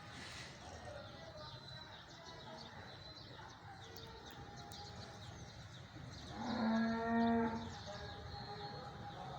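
A cow mooing once, a single call of about a second and a half, around two-thirds of the way through.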